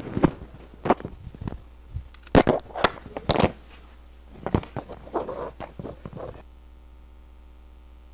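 A string of irregular sharp knocks and clatters, about fifteen at uneven spacing, which stop abruptly after about six and a half seconds, leaving a steady low hum.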